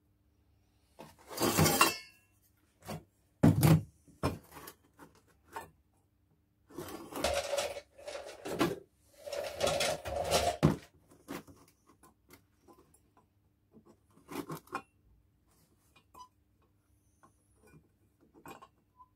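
Stainless steel exhaust tube bends and steel bar clanking and scraping on a workbench as they are handled, set down and slid into position: a heavy knock, a sharp clank, a longer stretch of scraping and rattling, then scattered light taps.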